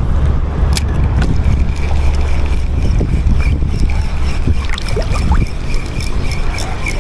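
Wind buffeting the microphone in a steady low rumble over lapping sea water, while a small spinning reel is cranked to retrieve the lure, its gears giving a fast run of faint ticks in the second half.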